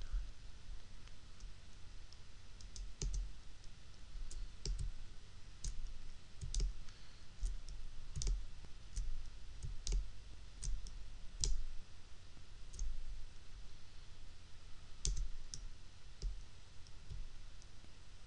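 Computer mouse clicking irregularly, a click every second or so, some clicks with a dull low thump, as on-screen sliders are grabbed and dragged.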